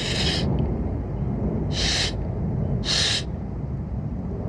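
Acorn-cap whistle blown between the thumbs: three short, shrill, hooting blasts, about a second in between the last two, over a steady low rumble.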